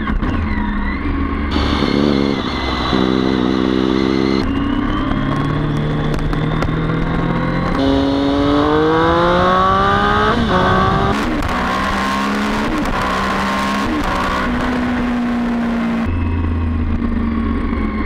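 Sport motorcycle engine under way, holding steady revs and then climbing in pitch as it accelerates about eight seconds in. The sound changes abruptly several times where the footage is cut together.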